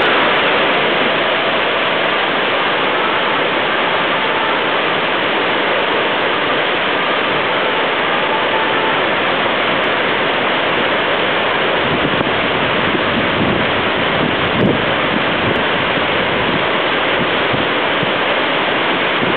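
Water overflowing a dam spillway through Godbole-type automatic gates, a loud, steady rush of falling water. About halfway through, wind begins buffeting the microphone with low rumbling gusts.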